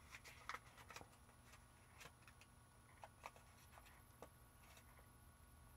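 Near silence: faint scattered rustles and light clicks of hands handling paper.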